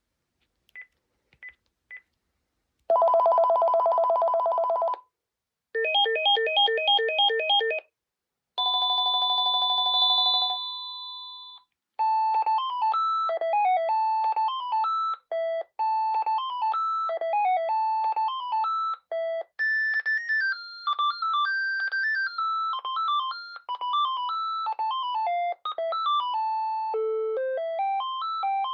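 Panasonic KX-TG5439 cordless phone handset cycling through its ringtones. Three short key beeps come first, then a steady trilling ring, a pulsing ring and a held two-note tone. After about twelve seconds a quick electronic melody ringtone plays on.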